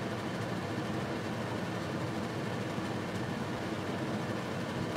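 A creamy meat sauce simmering in a frying pan on an induction hob, a steady rushing bubbling noise while it is stirred with a wooden spatula.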